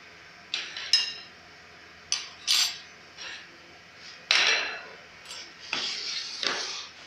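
A steel spoon clinking and scraping against a bowl and plates, and dishes being set down on a tiled counter. They come as a string of separate clinks and knocks, one with a short ring, the loudest about four seconds in.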